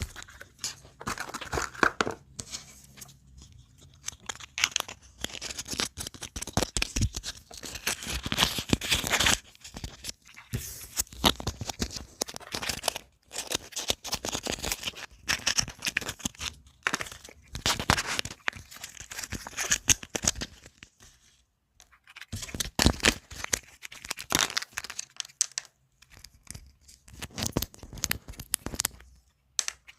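Packaging being handled for wrapping: crinkling, rustling and tearing of wrapping material, in irregular crackling bursts broken by short pauses.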